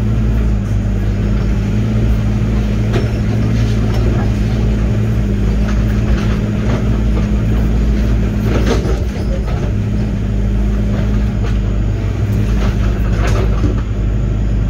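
Diesel engine of a Link-Belt 145 excavator running steadily under work, with a few sharp knocks from the machine at work.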